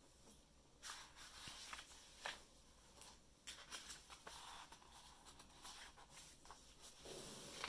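Faint paper rustling and a few soft taps as a page of a large hardcover picture book is handled and turned over.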